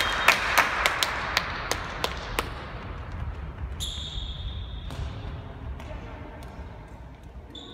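A handball bounces sharply on a sports-hall floor, about three knocks a second, dying away over the first two seconds amid echoing hall noise. A referee's whistle blows once, about a second long, near the middle, and again briefly near the end.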